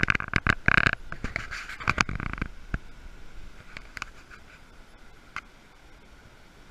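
Scraping and clicking handling noise on a small camera, dense for the first two and a half seconds, then a few single clicks over a faint steady hiss.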